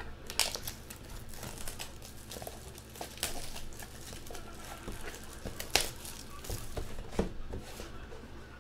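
Plastic shrink wrap being torn and crumpled off a sealed trading-card box: irregular crinkling rustles, with the sharpest crackle near six seconds in.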